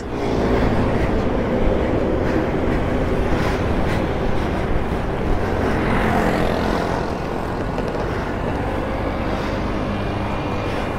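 Motorcycle engines idling steadily.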